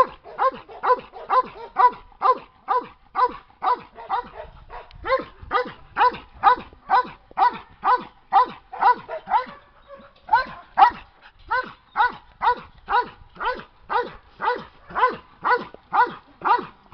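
A dog barking over and over in an even rhythm, about two barks a second.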